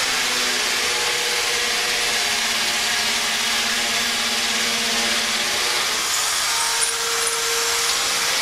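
Electric drill running steadily under load, boring into the brickwork of a chimney breast.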